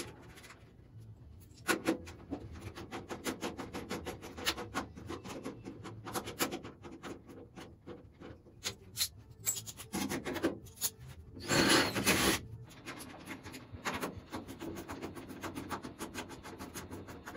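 Hand tools fastening button-head Allen bolts into a steel door sill reinforcement bracket: a rapid run of small metallic clicks and rubbing, with a louder rough scrape lasting about a second near the twelve-second mark.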